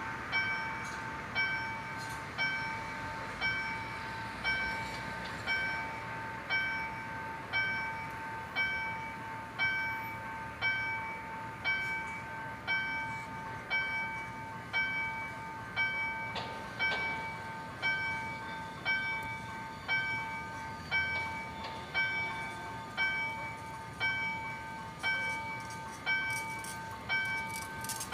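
Level-crossing warning bell ringing at an even, slow pace, a little slower than one stroke a second, each stroke ringing on and fading before the next: the crossing is closed for an approaching train.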